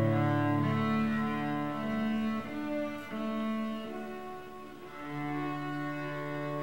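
Slow instrumental music with long held notes that change every second or so; a low note settles in and holds from about five seconds in.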